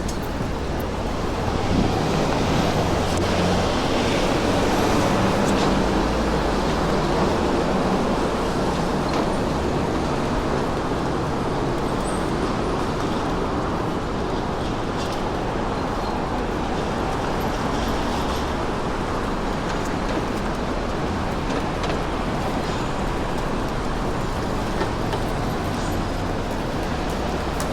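Steady city street traffic noise: motor vehicles passing with a continuous low rumble, a little louder in the first several seconds.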